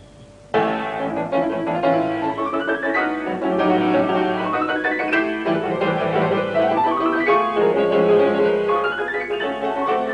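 Solo grand piano. After a quiet pause it comes in loudly about half a second in, then plays fast rising runs that sweep up the keyboard again and again.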